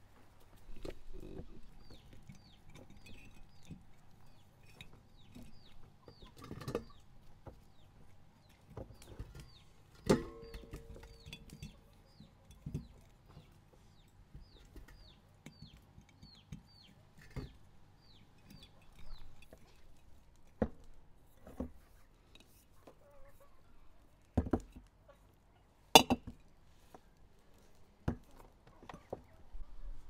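Chickens clucking, with a run of short, quickly falling high peeps about once or twice a second that stop about two-thirds of the way through. Scattered sharp knocks and a ringing clink like dishes about ten seconds in sound among them; the loudest is a sharp knock near the end.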